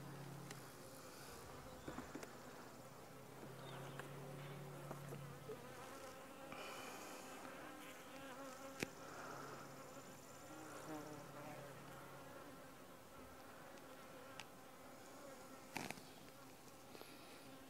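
Honey bees buzzing faintly around frames being lifted out of a nuc box, the hum swelling and fading as bees fly close. A couple of sharp knocks sound about a third of the way in and near the end.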